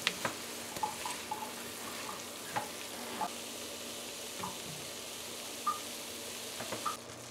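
Bora (long beans), potato and saltfish sizzling steadily in a nonstick pan while a silicone spatula stirs them, with light scrapes and taps of the spatula through the sizzle. The sizzle cuts off suddenly near the end.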